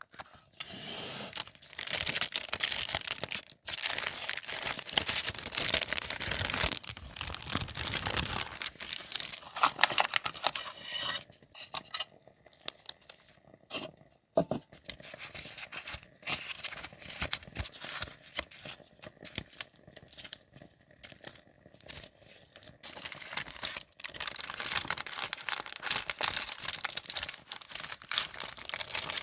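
Paper handled close up, rustling, crinkling and tearing in spells of dense scratchy noise, with a quieter stretch of scattered small clicks in the middle.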